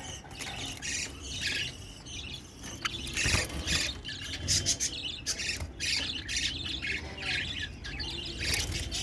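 Caged pet birds, budgerigars and Java sparrows, chirping and squawking in a steady stream of short, overlapping calls.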